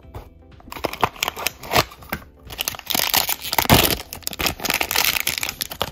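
Thin plastic wrapper crinkling and crackling as it is handled and pulled open by hand, loudest about midway through.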